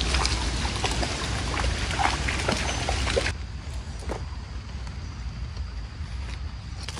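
Shallow floodwater splashing and sloshing as something wades through it, dense for about three seconds and then dropping to a few light splashes, over a low rumble of wind or handling on the microphone.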